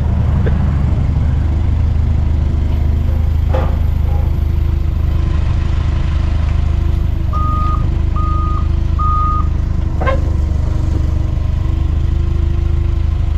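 Doosan forklift engine running steadily. Its reversing alarm beeps three times about halfway through. There are two sharp clanks, one a few seconds in and one near the end.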